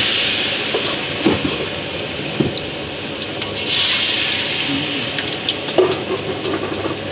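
Sala bulek balls of turmeric rice-flour dough sizzling as they are tipped into very hot oil in a wide aluminium wok, with scattered small crackles. The hiss eases, then surges loud again a little under four seconds in as a second bowlful goes into the oil.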